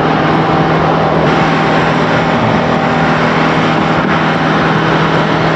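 Concrete line pump's engine running steadily under load while the operator works to clear a rock plug in the line.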